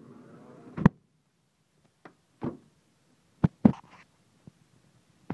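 A few short knocks and thuds, the loudest about a second in and a quick pair a little past the middle, while the camera is carried out of the minibus to its side door.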